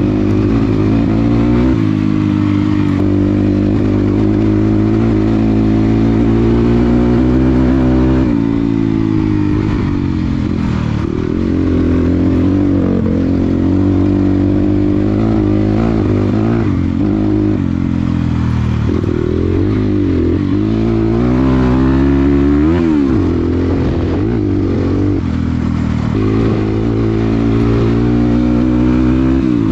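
Dirt bike engine running under load, its pitch rising and falling as the throttle is opened and rolled off, with one sharp rev up and back down about two-thirds of the way through.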